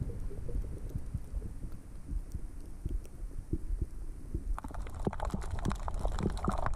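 Underwater sound picked up by a camera in a waterproof housing: a muffled low rumble of moving water with irregular dull thumps. From about four and a half seconds in, a crackle of short sharp clicks joins in.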